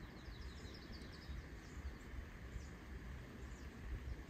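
Faint outdoor ambience: a low wind rumble on the microphone, with a quick run of faint high bird chirps in the first second or so.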